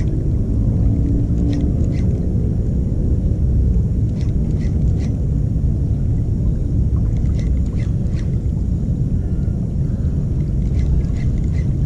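Wind buffeting the microphone as a steady low rumble, with a few faint, short high ticks in small clusters now and then.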